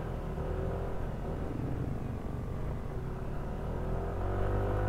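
Yamaha NMAX 155 scooter's single-cylinder engine running under way over a low road rumble, picking up speed with its pitch rising near the end.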